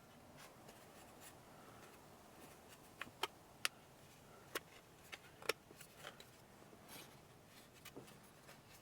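Light clicks and taps of small parts being handled as a screw insert is fitted into a cover plate: a dozen or so sharp clicks at irregular intervals, the loudest between about three and five and a half seconds in.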